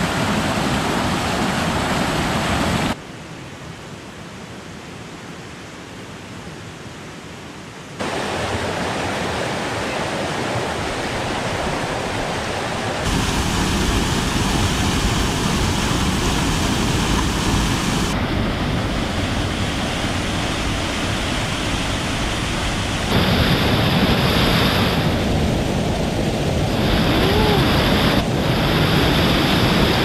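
Steady rush of a swollen mountain stream, with water pouring over rocks and over a small check dam. The noise changes abruptly at several points as one clip cuts to the next, and is much quieter for a few seconds early on.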